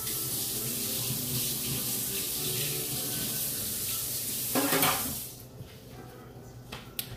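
Kitchen faucet running into the sink for about five seconds, then shut off. Faint background music plays underneath.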